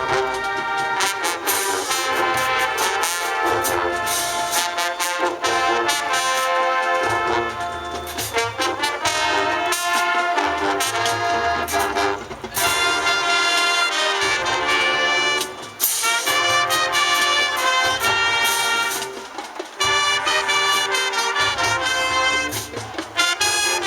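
High school marching band playing, with full brass (trumpets and trombones) over drums. The band breaks off briefly between phrases about twelve, sixteen and twenty seconds in.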